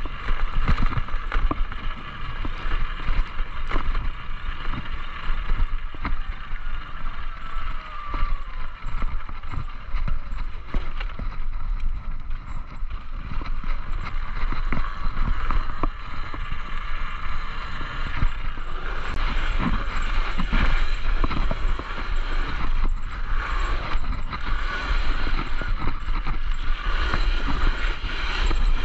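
Talaria Sting electric dirt bike riding over a rough dirt trail: wind buffeting the microphone, with rattles and knocks from the bike over bumps and a steady motor whine that falls in pitch for a few seconds about six seconds in.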